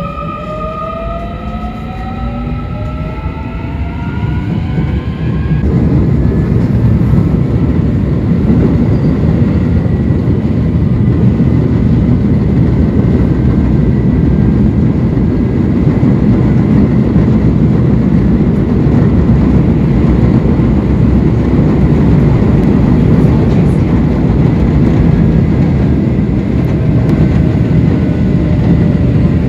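Electric commuter train pulling away: the traction motors' inverter whine climbs in several stacked pitches for the first five or so seconds, then cuts off. The steady, loud rumble of wheels running on rail carries on at speed.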